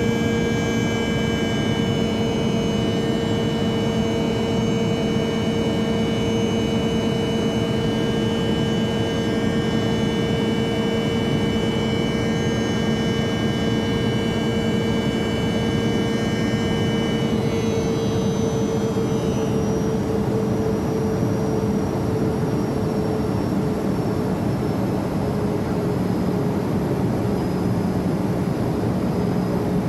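Learjet cabin during takeoff: the jet engines give a steady rushing roar with several whining tones on top. About two-thirds of the way through, the highest whines drop in pitch and fade, and the lower hum eases slightly downward.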